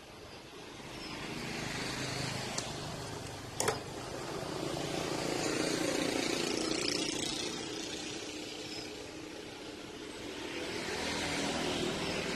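Traffic going by: three slow swells of road noise, each rising and fading over a few seconds. A single sharp click about three and a half seconds in.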